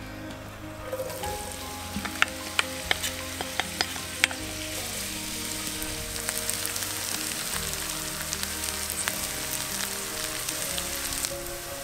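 Sliced onions sizzling as they fry in hot canola oil in a cast iron skillet. The sizzle starts about a second in, with a run of sharp crackles over the next few seconds, and cuts off suddenly near the end.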